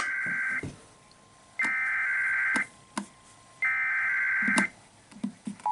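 Emergency Alert System SAME header: three bursts of warbling data tones, each about a second long and about a second apart, announcing a weather alert.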